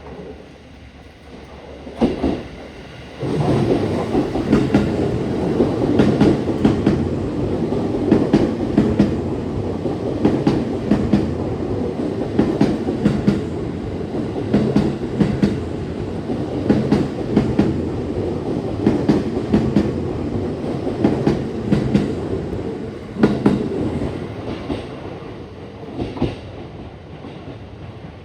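JR East E257 series 2000-number electric train passing through the station, its wheels clattering over rail joints in repeated clickety-clack groups. The train arrives suddenly about three seconds in and fades away over the last few seconds.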